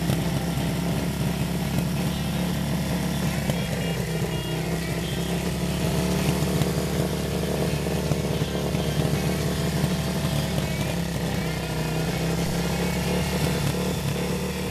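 Yamaha XS650 air-cooled parallel-twin motorcycle engine running steadily at an even speed.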